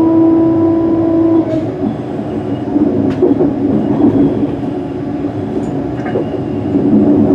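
Cabin noise of a Class 385 electric multiple unit running at speed: a steady rumble of wheels on rail with a humming tone that stops about a second and a half in and another that swells near the end. A few sharp clicks sound over it.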